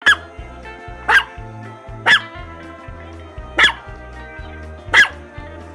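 A small dog, a Jack Russell terrier, barking five times, single short barks about a second apart. Background music with a steady bass line plays underneath.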